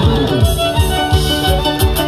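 Live Andean dance music from a band: sustained melody notes over a steady, quick drum beat.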